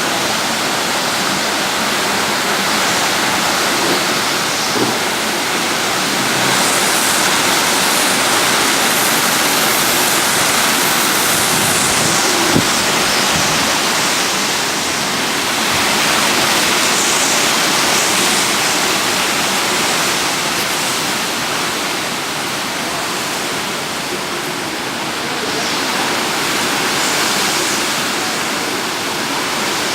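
Hurricane wind and heavy rain: a steady rushing noise that slowly swells and eases.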